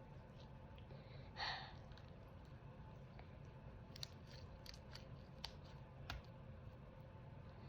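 Nearly quiet room with a steady low hum. A short breathy exhale, like a sigh, comes about a second and a half in, and a few faint small clicks follow about four to six seconds in.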